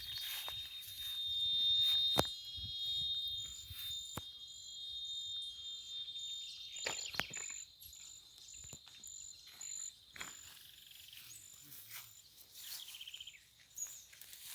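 Insects chirping: a steady high trill and a short, higher chirp repeated about twice a second. A few sharp clicks break in, the loudest about two seconds in.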